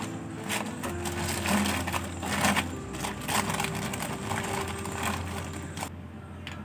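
Clear plastic bag crinkling and rustling as small lacquered wooden toy pots are rummaged and pulled out of it, with light wooden clacks. The crinkling is busiest in the first few seconds.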